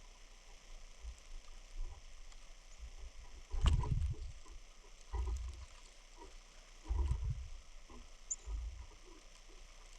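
Snowstorm wind gusting against the microphone in irregular low rumbles every second or two, with one sharp knock a little before the middle and a faint high chirp near the end.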